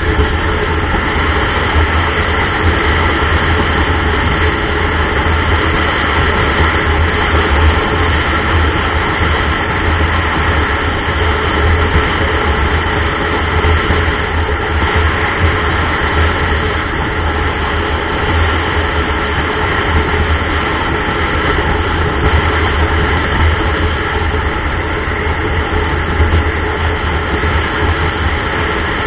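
Steady rumble of a motorcycle riding at road speed, with wind on the microphone mixed with engine and tyre noise.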